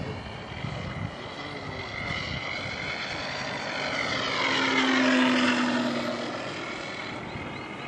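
Electric RC Spitfire's motor and propeller as the model flies past: it grows louder to a peak about five seconds in, then drops in pitch and fades as it moves away.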